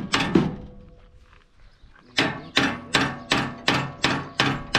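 Hammer striking metal: two blows, a pause of about a second and a half, then a steady run of blows, about three a second.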